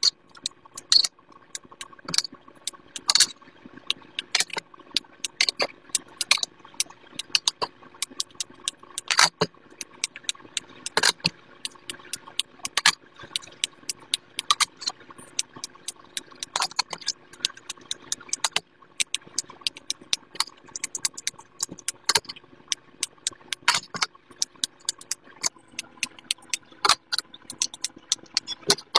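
Silicone pop it fidget toys being popped as fast as possible: an irregular run of sharp pops, a few each second, over a faint steady hum.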